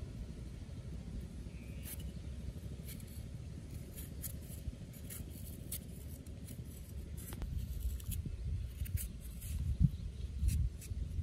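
Cleaver blade scraping and shaving the end of a hand-held raw carrot: a series of short, irregular scraping strokes, with a couple of dull thumps near the end.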